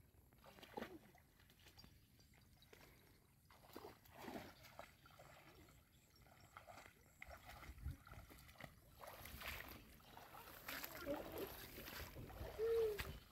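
People wading through shallow, muddy floodwater among weeds: irregular sloshes and splashes of legs moving through the water and brushing through vegetation, growing busier in the second half.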